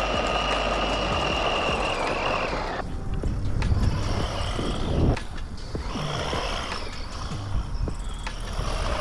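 Brushless electric motor and drivetrain of a Vkar Racing Bison 1/10-scale RC truck driving over grass, making a steady high whine. The whine cuts off about three seconds in, then comes back in short bursts, with low rumble and scattered clicks underneath.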